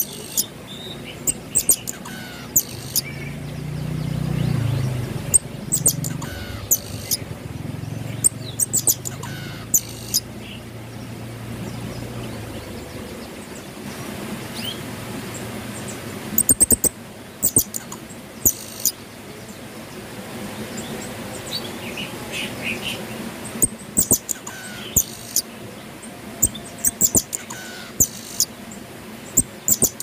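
Pin-tailed parrotfinches giving short, very high-pitched chirps in quick clusters every second or two, sparser in the middle stretch. A low rumble swells and fades away in the first half.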